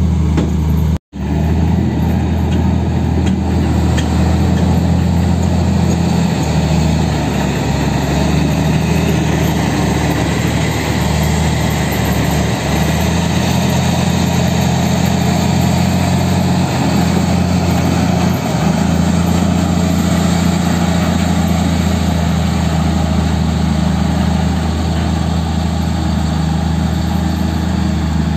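Diesel engines of dump trucks and a bulldozer running steadily under load in mud. There is a brief dropout about a second in.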